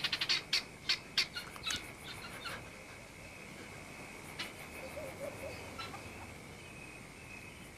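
Guineafowl alarm calls: a rapid run of sharp, harsh calls that thin out and fade over the first two or three seconds. After that a steady high-pitched insect chirring carries on, with a few faint scattered calls.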